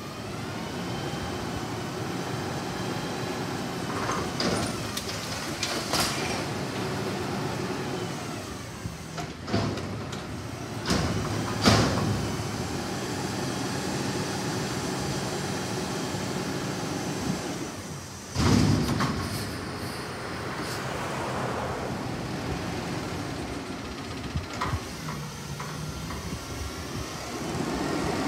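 Autocar ACX front-loader garbage truck with a Heil body emptying a dumpster: the engine revs up to drive the hydraulic forks, which lift the container over the cab and lower it again. Several sharp metal bangs come as the dumpster is knocked and shaken out over the hopper, with a louder crash about eighteen seconds in.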